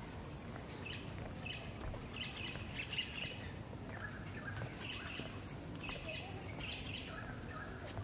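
Forest birds calling: short chirping phrases that come again and again, some high and some lower, over a steady high-pitched hiss that pulses at times.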